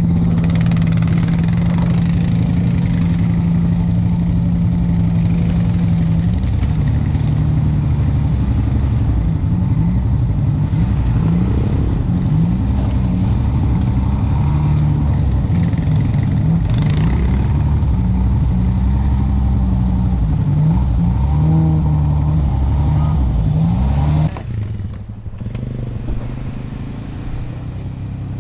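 Honda ATV engine running on the move, steady at first, then its pitch rising and falling with the throttle along a rough trail. About 24 seconds in it drops back to a quieter idle.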